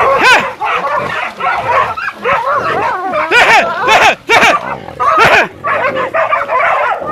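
Several dogs barking and yelping in a frenzy, their short calls overlapping, with a few sharper, louder yelps in the middle.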